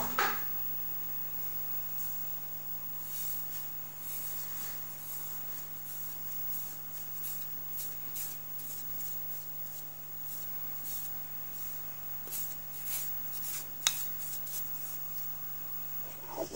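Steady low electrical hum with scattered faint ticks and one sharper click near the end.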